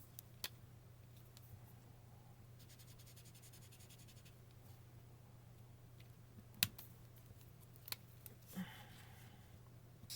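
Faint scratching of a fine-point felt-tip marker drawn across paper, with a few sharp clicks, the loudest about two-thirds of the way through, over a low steady hum.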